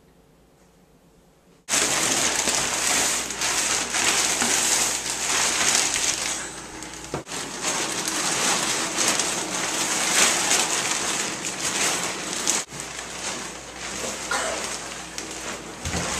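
Near silence, then about two seconds in a sudden loud crackling hiss like heavy rain or static cuts in and carries on, briefly dropping out twice.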